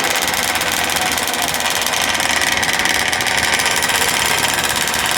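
Small two-stroke gas engine of a large-scale RC car running steadily at a fast, buzzing beat.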